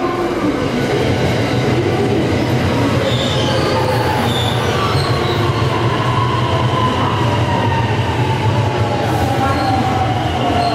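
Electric commuter train running in alongside the platform: a steady rumble of wheels on rail, with a whine that falls steadily in pitch as the train slows.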